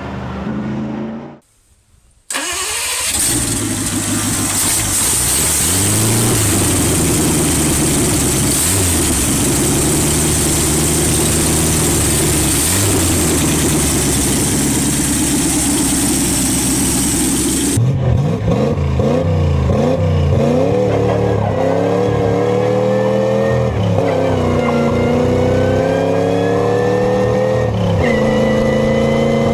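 Packard 356 cu in (5.8-litre) flathead straight-eight running, with a few brief blips of the throttle. From about 18 s in it is heard driving, its revs rising and falling again and again as it pulls away. A different racing engine is heard briefly at the very start, before a short drop to near silence.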